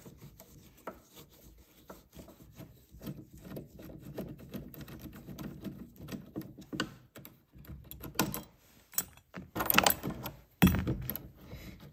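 Hand screwdriver turning a screw out of a metal cabinet-lock bracket, with a run of small metallic clicks and scrapes. From about eight seconds in, louder metal clatter as the lock and bracket are worked loose by hand.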